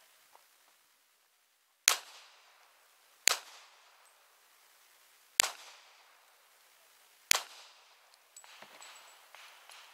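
Four semi-automatic pistol shots, single sharp cracks about one and a half to two seconds apart, each trailing off in a short echo. Softer irregular noises follow near the end.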